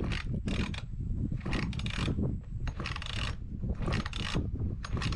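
Recoil starter of a 1970s Homelite Super 2 two-stroke chainsaw pulled again and again, about once a second, turning the engine over with the spark plug out. The rope rasps through a recoil that needs work.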